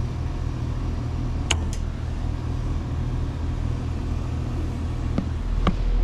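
Steady low electrical hum from a heat pump's outdoor unit while its locked-up compressor sits off on its thermal cutout, drawing no current. A sharp click about one and a half seconds in, and a couple of lighter knocks near the end.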